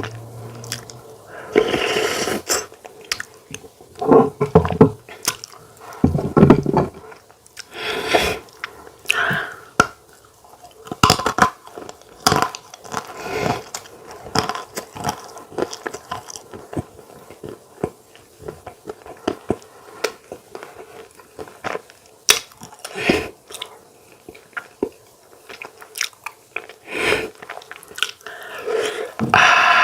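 A person eating close to the microphone: irregular bites and chewing sounds, with short clicks of the mouth between them.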